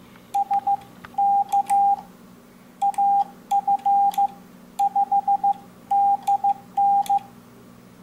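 Morse code sidetone from an MFJ-422D electronic keyer worked by an iambic paddle: a single steady beep of about 800 Hz keyed in dits and dahs in seven short groups, with faint clicks from the paddle levers. The last five groups read as the callsign AF5DN.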